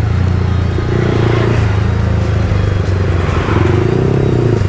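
Yamaha R15 V3's single-cylinder engine running steadily under way, a constant low hum with road and wind noise over it.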